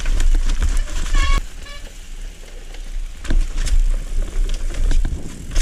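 A mountain bike descending a rough, wet dirt trail, heard from a camera on the rider: a steady rumble of tyres and wind on the microphone, with rattles and knocks as the bike goes over roots and bumps. About a second in, a short high squeal of the disc brakes.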